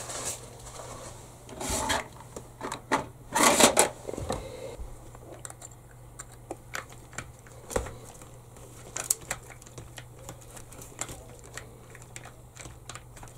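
Hands handling small parts on a workbench, working among an RC buggy's parts and wiring. Two louder rustling scrapes come in the first four seconds, then a run of small, irregular clicks and taps.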